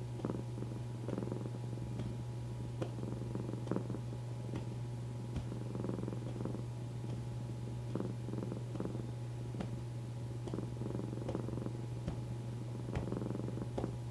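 Domestic cat purring steadily, close up, a continuous low rumble with a few faint clicks.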